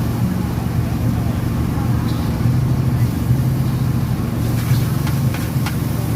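Gas wok burner running with a steady low rumble while char kuey teow is fried, with a few sharp clinks of a metal spatula against the wok near the end.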